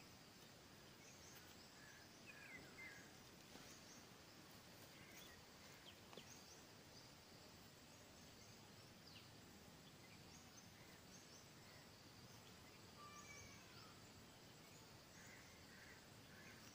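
Near silence: faint outdoor ambience with scattered faint bird chirps.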